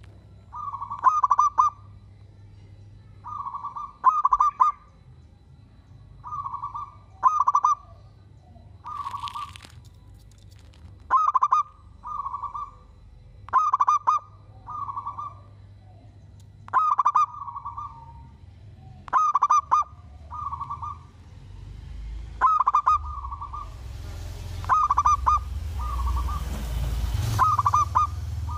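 Zebra dove (perkutut) cooing its song over and over: short rolling coos near 1 kHz, a new phrase every two to three seconds. A low rumble and hiss rise near the end.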